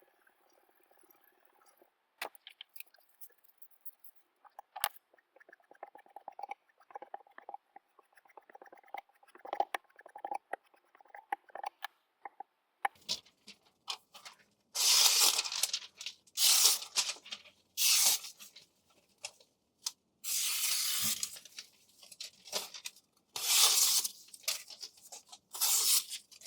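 Kitchen knife blade working in a series of about six loud strokes, each about a second long, through the second half; before them only light scattered ticks and scratches.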